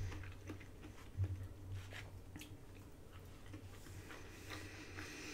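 A person chewing a mouthful of food with her mouth closed: faint wet mouth sounds and scattered small clicks, over a low steady hum.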